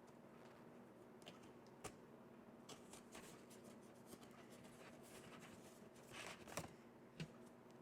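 Faint rustling of paper and cardstock being handled, with a few small sharp clicks and a brief rustle near the end, over a low room hum.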